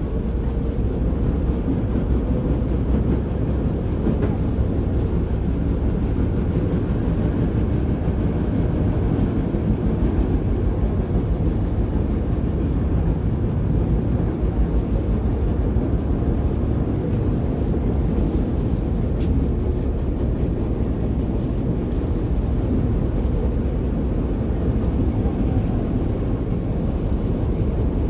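Running noise inside a KTM-5M3 (71-605) tram under way: a steady low rumble of its wheels on the rails and its DK-259 traction motors.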